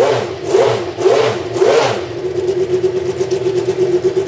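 McLaren-Honda MP4/6's 3.5-litre V12 engine blipped four times in quick succession, each rev rising and falling in pitch, then settling to a steady idle.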